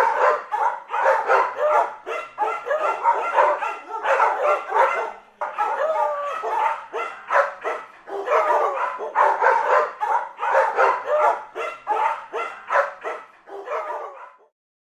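Dogs barking in quick, overlapping barks with hardly a pause, stopping abruptly just before the end.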